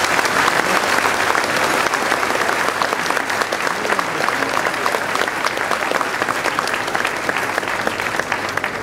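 Large seated audience applauding, a dense steady clapping that eases off slightly near the end.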